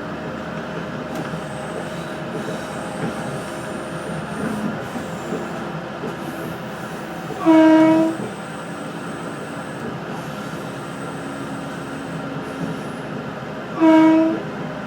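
Adelaide Metro 3100 series railcar running, heard from inside the carriage: a steady rumble of wheels and running gear, broken by two short blasts of the train horn, one about halfway through and one near the end.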